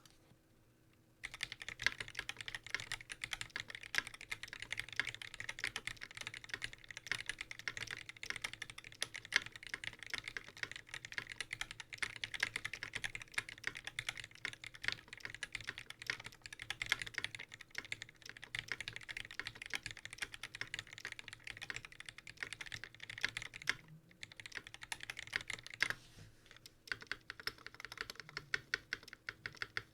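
Fast continuous typing on a QXP60 60% custom mechanical keyboard with a brass plate, hand-lubed 1994 Cherry MX Black linear switches and GMK keycaps, as a stream of key clacks. It starts about a second in and pauses briefly near the end before resuming.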